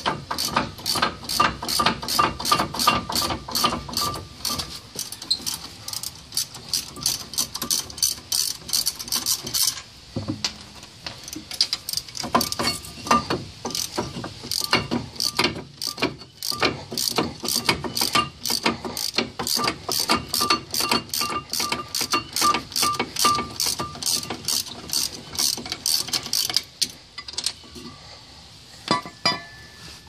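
Socket ratchet wrench clicking steadily, about three clicks a second, as the 15 mm caliper bracket bolts are backed out. There is a short lull about ten seconds in, and the clicking stops a few seconds before the end.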